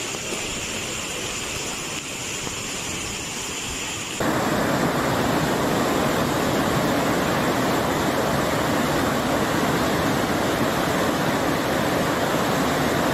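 Floodwater rushing through a street in heavy rain: a steady noise of moving water that jumps abruptly louder about four seconds in.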